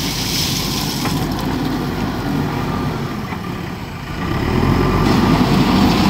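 JCB 4DX backhoe loader's diesel engine running, with gravel pouring out of the front loader bucket at the start. About four and a half seconds in, the engine revs up and gets louder under load.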